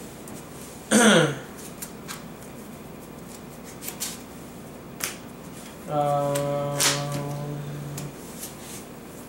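Playing cards being handled and tapped on a table, a scatter of short clicks. About a second in comes a loud, brief sound sliding down in pitch, and around six seconds in a steady hummed tone is held for about two seconds.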